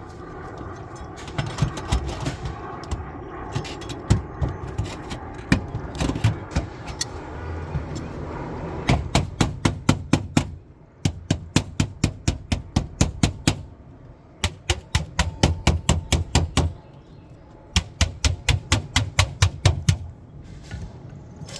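Hammer tapping a copper roof seam in quick runs of sharp metallic taps, about five a second, with short pauses between runs, closing the seam as the work moves up it. A low rumble runs underneath.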